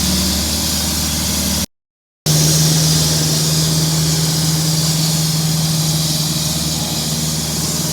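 An engine running steadily at an even speed, a constant hum with hiss over it. It drops out completely for about half a second near two seconds in, then comes back with a stronger steady tone.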